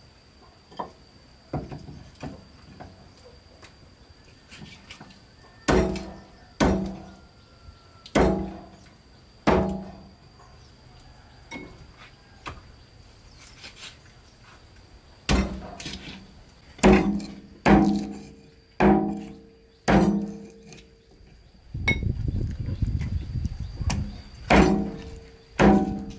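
Cleaver chopping chicken on a thick round wooden chopping board: heavy knocks, each with a short hollow ring from the board. A few come singly in the first half, then in quicker runs from about fifteen seconds in, with a low rumbling noise between strikes near the end.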